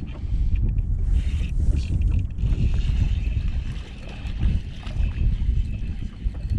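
Gusty wind buffeting the microphone: a heavy, uneven low rumble that swells and dips.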